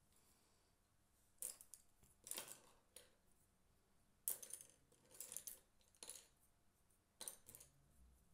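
A series of faint, short clicks and clinks from small hard objects being handled, about seven in all, the loudest about four seconds in.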